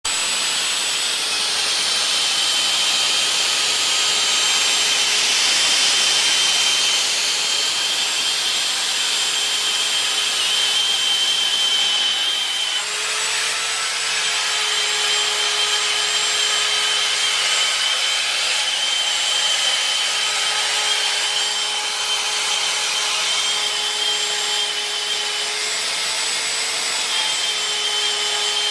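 Homebuilt CNC router running, its spindle whining steadily as the bit cuts out an Old English letter D. The whine shifts slightly about halfway through.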